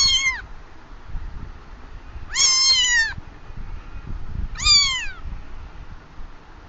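Domestic cat meowing three times, each call falling in pitch at its end; the middle meow is the longest.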